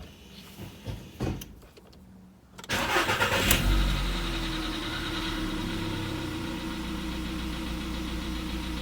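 Volkswagen Polo Sedan petrol engine cold-started: after a few faint clicks, the starter cranks about two and a half seconds in, the engine catches, flares briefly and settles into a steady idle. No knock is heard on this cold start.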